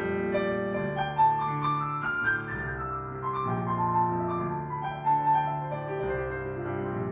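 Solo piano playing a slow blues piece: held low chords under a melody that climbs about two seconds in, then steps back down.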